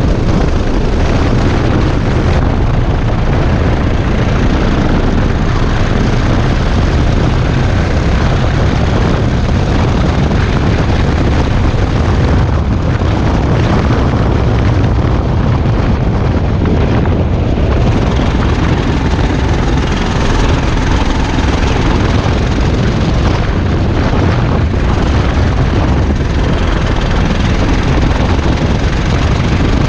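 Go-kart engine running hard at speed, heard from on board the kart; the sound dips briefly a few times along the way.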